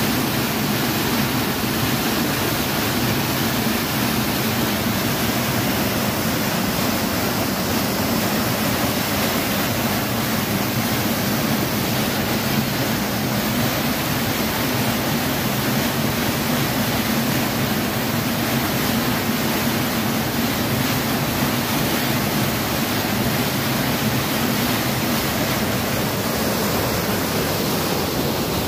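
Flash-flood torrent of muddy water surging and churning over a road crossing: a loud, steady rush of water that holds unchanged throughout.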